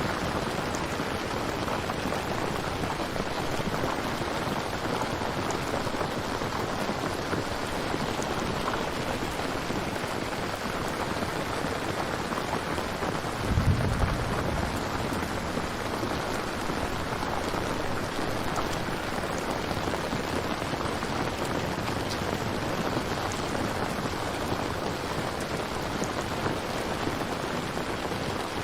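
Steady, heavy rainfall hissing evenly, with a brief low rumble about halfway through.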